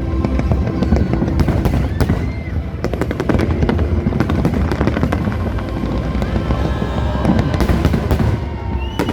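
Aerial fireworks display: many sharp bangs and crackles in quick succession over a continuous low rumble, with music underneath.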